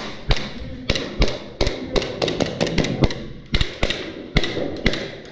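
Hurried footsteps on a hard concrete floor: a quick, uneven run of sharp taps and thuds.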